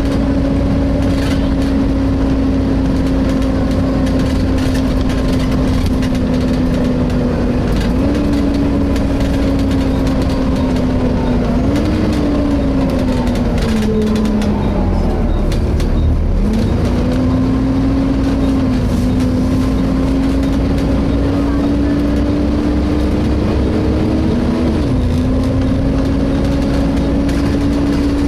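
Volvo B7TL double-decker bus running, heard from inside, with a steady whining tone over a low rumble. The whine drifts slowly down, jumps up in pitch a few times, sinks low near the middle and climbs back again as the bus slows and pulls away.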